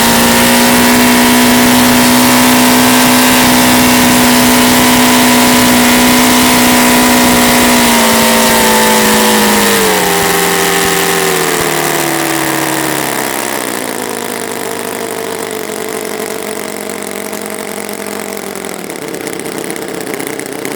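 TechnoPower 9C nine-cylinder, four-stroke, glow-fuel model radial engine turning a propeller: it runs steadily at high speed, then about eight seconds in its pitch and loudness fall in steps as it slows down toward idle.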